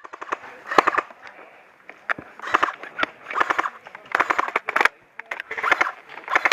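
Airsoft electric guns firing in short bursts, about six rapid strings of sharp cracks spread over the few seconds.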